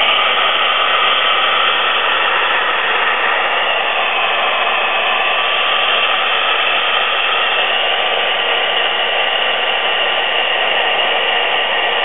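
Handheld hot-air blower running steadily, a loud even rush of air with a faint whine in it, blowing heat onto a snap-disc thermostat to make it close.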